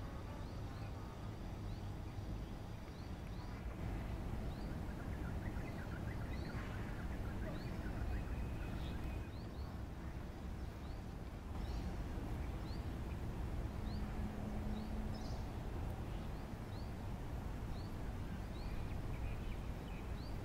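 Outdoor ambience: a bird repeating a short, high, rising chirp roughly once a second over a steady low rumble.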